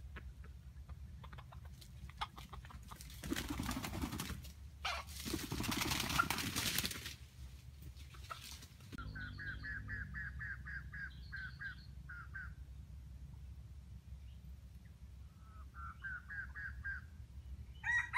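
Red junglefowl rooster clucking in rapid runs of short calls, about six a second, in two spells, then starting to crow at the very end. Earlier come two loud rushing bursts of noise lasting a second or two each.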